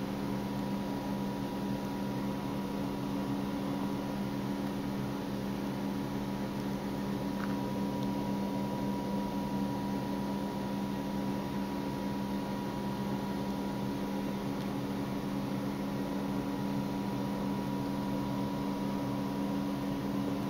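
A steady machine hum with several constant tones over a low hiss, unchanging throughout.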